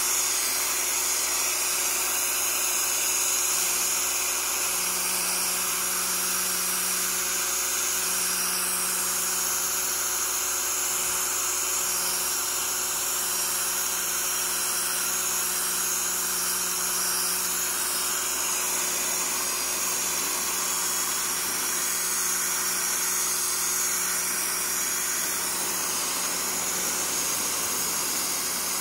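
Pressure washer running steadily, its water jet hissing as it blasts dirt off a plastic canoe hull, with a faint steady hum under the spray.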